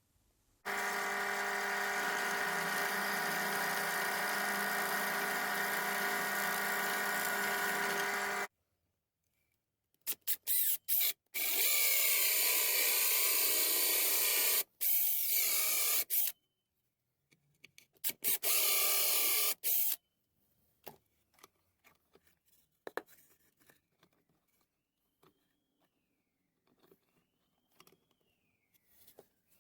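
Pillar drill motor running with a steady hum for about eight seconds. After a silence, the drill cuts into wood with a harsher, noisier sound in two stretches of a few seconds each. Only faint scattered clicks follow.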